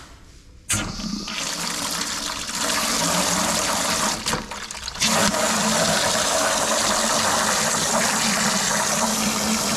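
Water running hard out of an opened tap, starting suddenly about a second in, with a short dip about halfway through: the newly repaired copper line being flushed out.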